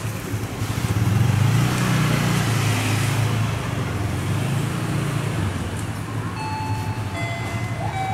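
Diesel locomotive engine running with a low, steady drone that swells about a second in and then eases slightly.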